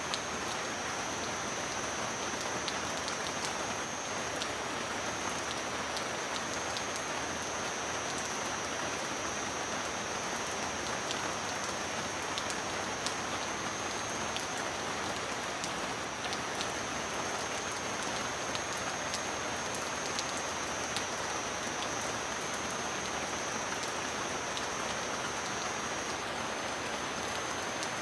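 Steady heavy rain: an even hiss with many sharp drop ticks, and a thin steady high-pitched tone running through it.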